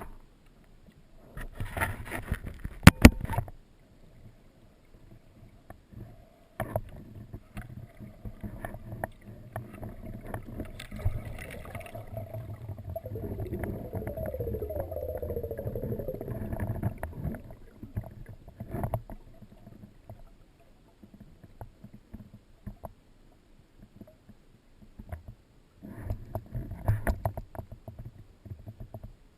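Muffled underwater noise heard through a GoPro's waterproof housing: low rumbling and gurgling with scattered knocks and clicks. There are louder stretches at the start, through the middle and near the end.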